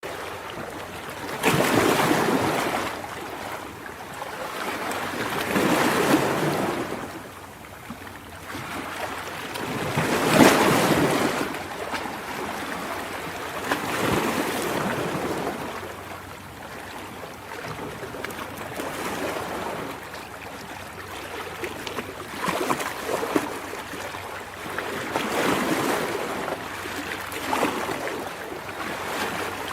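Ocean waves breaking and washing in, in repeated surges every few seconds; the loudest surges come about 2, 6 and 10 seconds in, and the later ones are softer.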